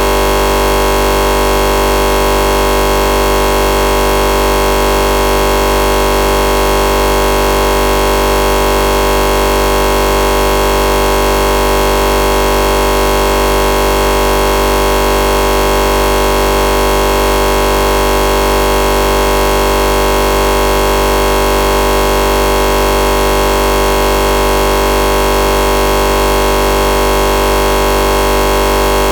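PC freeze-crash sound: a loud, unchanging buzzing drone made of many fixed tones over hiss, the computer's audio stuck looping a tiny fragment after the system has frozen.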